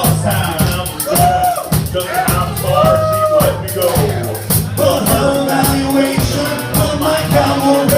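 Music with a steady beat and a melody line over it.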